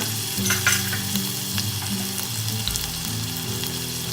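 Ginger-garlic paste sizzling in hot ghee in a pan, with a few light clicks scattered through the steady hiss.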